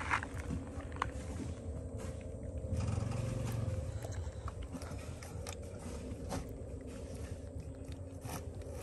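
Scattered small clicks and rustles as a baby monkey handles and bites at a bunch of bananas on gravel, with a brief low rumble about three seconds in.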